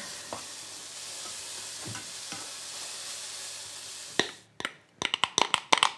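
Finely chopped leeks and carrots sizzling as they fry in a pan, stirred with a spatula that knocks lightly a few times. The sizzle stops about four seconds in, and near the end comes a quick run of clicks and knocks of a utensil against cookware.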